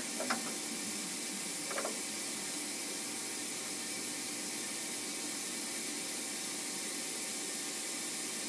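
Steady hiss of a milling machine's air-blast coolant nozzle blowing at the workpiece, with a couple of light clicks in the first two seconds.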